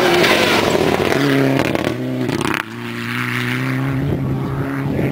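Rally car's engine running hard as it splashes through a shallow ford, followed by a steady engine drone at constant pitch. The sound breaks off abruptly about two and a half seconds in, and another steady engine drone follows.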